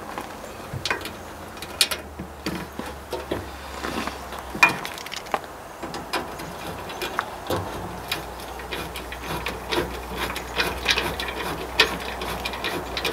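Ratchet wrench clicking in short, irregular runs as bolts are worked into the new radiator's mounting holes. A low steady hum runs underneath for much of the time, dropping out for a couple of seconds in the middle.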